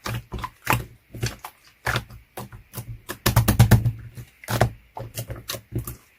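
Slime being squished and poked, making a string of irregular crisp clicking pops, with a quick run of pops a little past halfway.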